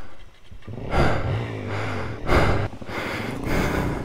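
A rider's heavy breathing close to the microphone after hard exertion: three loud, rushing breaths about a second apart.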